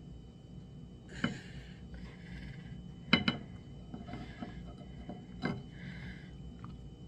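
Ceramic bowl clinking against a plate three times, the loudest in the middle, while thick soup is scraped out of it by hand, with soft rubbing and sliding sounds in between.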